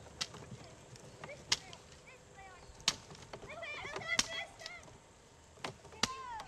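Five sharp clicks, roughly a second and a half apart, over faint, high, rising and falling calls.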